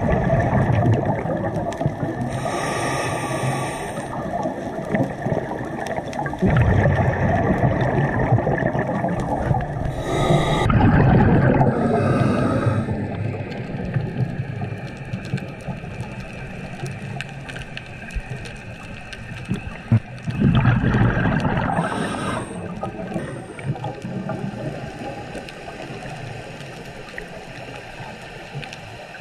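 Scuba diver breathing through a regulator underwater: short hissing inhales alternate with longer low, bubbling exhales, a few slow breaths in all.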